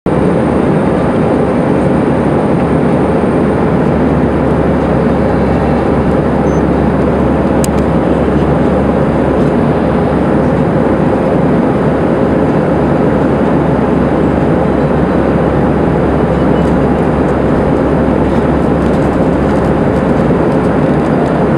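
Steady cabin noise inside an Airbus A319 in flight: the even rush of airflow and jet engine drone, with a faint steady tone over it. One brief click partway through.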